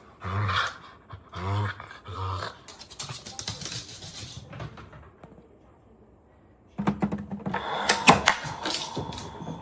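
Dog giving three short, low growls, then a quieter stretch, then a clatter of sharp knocks and clicks over the last few seconds.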